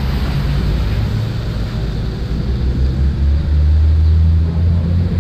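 A motor vehicle engine runs with a low, steady hum. It grows louder about three seconds in, then eases near the end.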